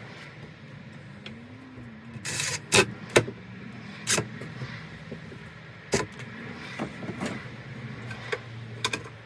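Cordless drill-driver whirring in short bursts as it drills a pilot hole and drives a screw into a metal drawer runner, with sharp clicks and knocks from the tool and the runner in between.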